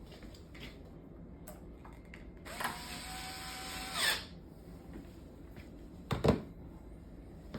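A power drill runs for about a second and a half with a steady whine that swells briefly just before it stops. A sharp knock follows a couple of seconds later.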